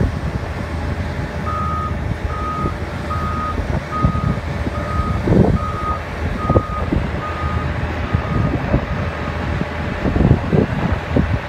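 Hyundai HL940XT wheel loader's reversing alarm beeping about ten times at an even pace, growing fainter, over its Cummins engine running, with scattered knocks and clunks.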